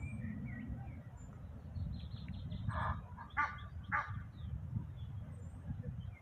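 Birds calling: a few faint high chirps, then three short, harsh calls a little over half a second apart, over a low steady rumble.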